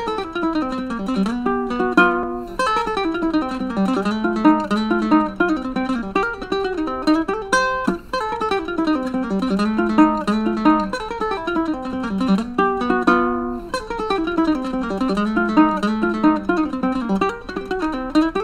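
Blackbird Farallon tenor ukulele, an Ekoa composite instrument strung with a low G, played solo in a fast fingerpicked instrumental. Quick single-note runs sweep down in pitch again and again, with one sharp chord about halfway through.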